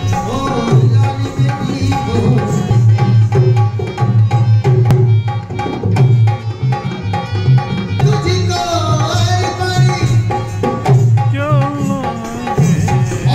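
Rajasthani folk music: a hand drum plays a steady, driving beat under a melodic line that turns wavy and ornamented in the second half.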